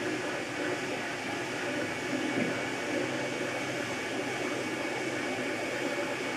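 MakerBot Replicator 2 3D printer running mid-print: its stepper motors whir as the extruder head moves over the part, over the steady hiss of its cooling fan.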